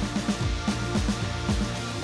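Background music with a steady drum beat, just under two beats a second.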